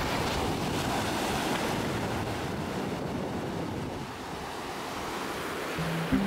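Small surf waves breaking and washing up a sandy beach at the water's edge, a steady rushing wash with no pauses.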